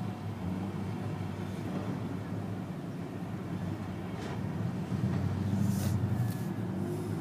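Steady low rumble, with a few faint metallic clicks from lock-picking tools working in a brass padlock, about four seconds in and again near six seconds.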